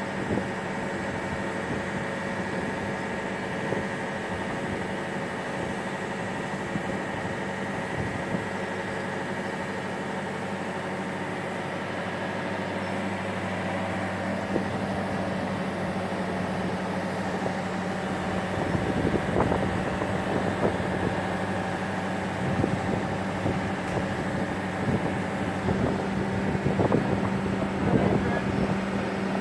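Boatyard travel lift's engine running steadily as the hoist lowers a wooden motor cruiser in its slings into the water. From about two-thirds of the way through, irregular knocks and bumps join the hum.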